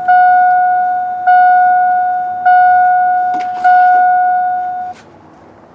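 Truck instrument-cluster warning chime sounding with the ignition key on: a bell-like ding that strikes and fades, repeating about once every 1.2 seconds, four times, then stopping about five seconds in.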